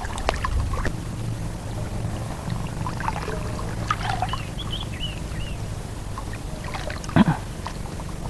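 Steady low hum of a running engine, typical of a motorboat on the reservoir, with a few faint high chirps in the middle and a brief thump about seven seconds in.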